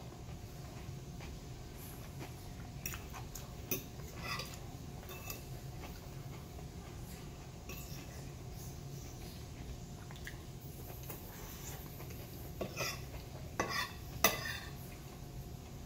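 Metal fork clinking and scraping against a plate while eating, a few short clinks at a time, grouped about three to five seconds in and again near the end, over a steady low hum.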